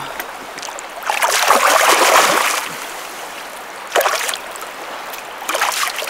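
Water splashing in and around a landing net held in a shallow river, with a grilse (small Atlantic salmon) in the net being handled. The splashing is loudest for about a second and a half starting about a second in, with a shorter, sharper splash about four seconds in, over the steady sound of the flowing river.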